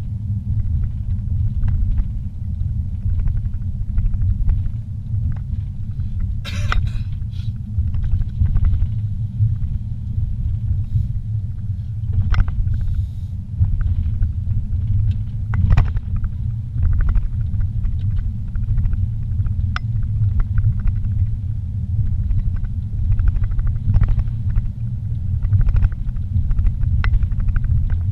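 A moving car's engine and tyre noise heard from inside the cabin as a steady low rumble, with a few faint knocks and rattles scattered through.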